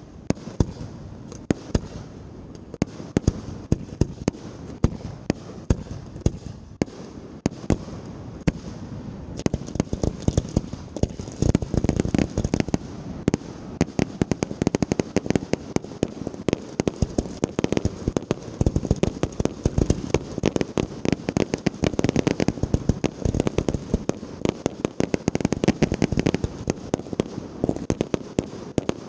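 Fireworks shells and ground-fired cakes launching and bursting in rapid succession: a dense run of sharp pops and bangs that thickens and gets louder about ten seconds in.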